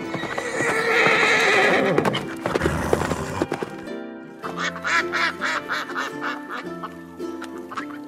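A horse whinnies over background music. About four seconds in, a mallard duck quacks in a quick series of calls.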